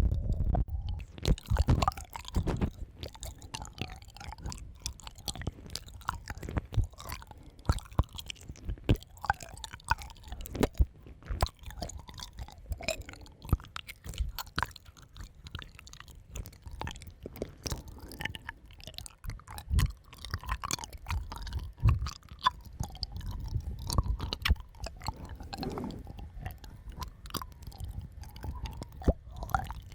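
Close-miked ASMR mouth sounds: wet clicks, smacks and sucking noises in an irregular stream, over a soft low rumble.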